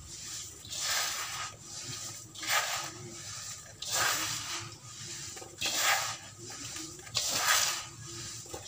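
Hands crumbling and squeezing damp sand-cement mix, a gritty rustling crunch in repeated strokes, a louder one about every second and a half.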